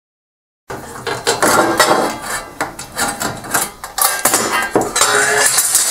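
Sheet-metal shield cover over a laser printer's main board being worked free and lifted off: a busy run of irregular metal clanks, knocks and rattles, with a brief ringing near the end. It starts abruptly about two-thirds of a second in.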